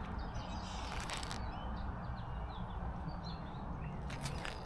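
Small birds chirping in short scattered calls over a steady low rumble, with a couple of brief rustling noises.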